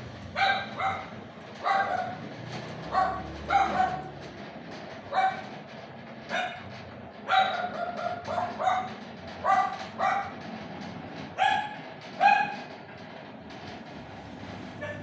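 A dog barking, a run of short barks, some in quick pairs, that stops about two and a half seconds before the end.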